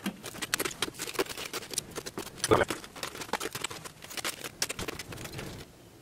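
Dry crackling and scratching as the cracked, loosely attached refractory coating and insulation of a furnace lid are broken up and pulled away by hand, with a louder knock about two and a half seconds in.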